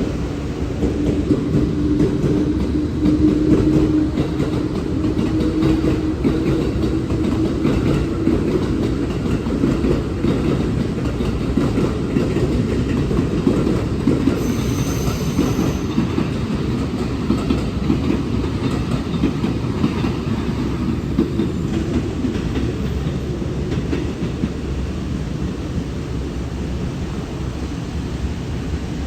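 Electric train running at a station platform: a steady low rumble of wheels on rail with clickety-clack, a low steady hum that fades over the first several seconds, and a brief high tone about halfway through.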